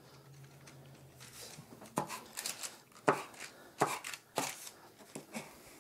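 Metal bench scraper chopping down through a thin slab of cold butter onto parchment paper over a wooden board: about five sharp taps in the second half, the edges being cut square.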